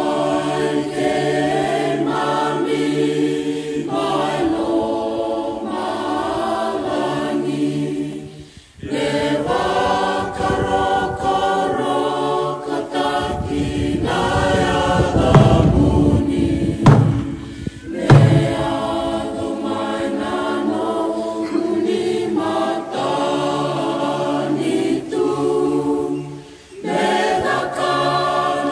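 Choir singing a hymn, with short breaks between phrases. About halfway through, a burst of low rumbling and two sharp knocks sound over the singing.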